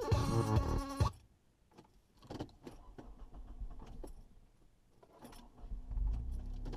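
Background music cuts off about a second in, leaving faint scattered clicks and light jangles. Near the end the low, steady drone of the car's engine and tyres inside the cabin sets in.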